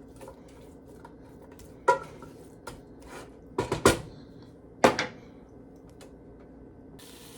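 Several sharp clanks of kitchen utensils against a pot, spaced a second or two apart. Near the end, a steady sizzle of food frying in the pot starts.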